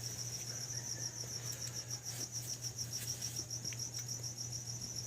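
Cricket chirping in a steady rapid trill of about ten pulses a second, over a low steady hum.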